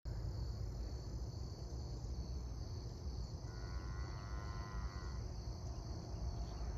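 Steady chorus of insects, a high ringing trill, over a low rumble. About three and a half seconds in, a faint drawn-out call with several pitches bending together sounds for about a second and a half.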